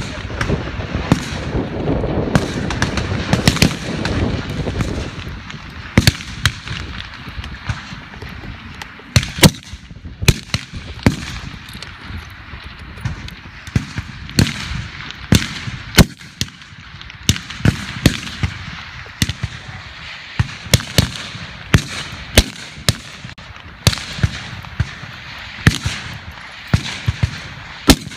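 Fullbore 7.62 mm target rifles firing single shots along a firing line: sharp cracks at irregular intervals, often less than a second apart, some near and loud, others fainter from further down the line.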